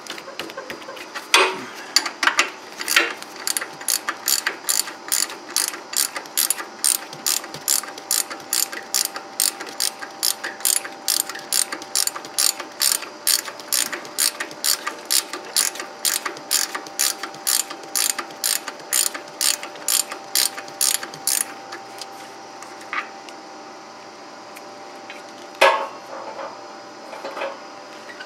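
Ratchet wrench clicking in quick, even strokes, about two to three clicks a second, as a drain plug is backed out of a hydraulic oil reservoir. The clicking stops a few seconds before the end, leaving a couple of single clinks over a faint steady hum.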